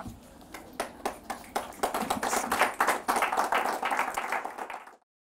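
Audience applauding: a few scattered claps at first, building to steady clapping about two seconds in, then cut off suddenly near the end.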